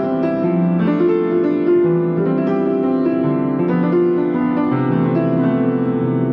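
Solo piano playing a piece of held notes and chords, a new note or chord struck every half second or so. A low bass note comes in near the end and keeps sounding.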